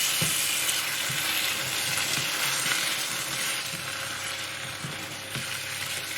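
Curry sauce sizzling in a frying pan while it is stirred, with light knocks of the spoon against the pan; the sizzle gradually fades a little.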